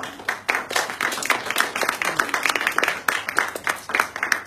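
Audience applauding: many quick, irregular hand claps, with single claps still easy to pick out.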